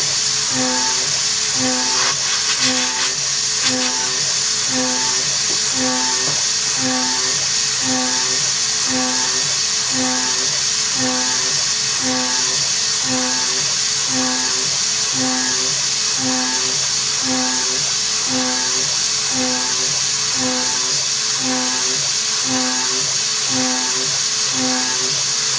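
High-speed spindle of a homemade CNC mill cutting aluminium with a carbide end mill: a steady, high-pitched machining noise. Background music with an evenly repeating beat plays over it.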